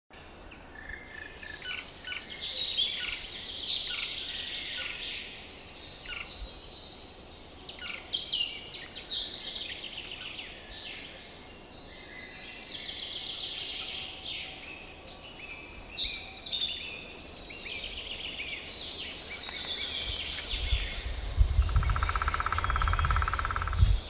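Small songbirds singing and chirping, with repeated falling song phrases. Near the end a steady, rapidly pulsed buzz begins, over a low rumble.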